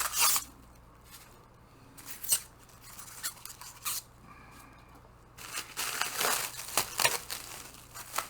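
Foam packing peanuts and packaging being rummaged through by hand: bursts of rustling, scraping and squeaky rubbing, busiest near the end.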